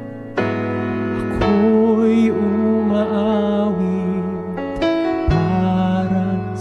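A man singing a slow song into a microphone over instrumental accompaniment, holding long notes with vibrato.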